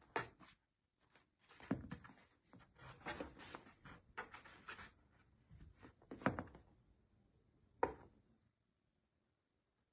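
Faint scratches, scrapes and light knocks on a cardboard box as a cat paws at its flap and shifts about inside it: a dozen or so short, irregular scratchy sounds, the two sharpest in the second half.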